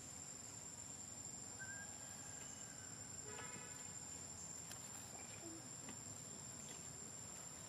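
Faint, steady high-pitched insect drone holding one unbroken tone, with a couple of brief faint chirps about two and three and a half seconds in.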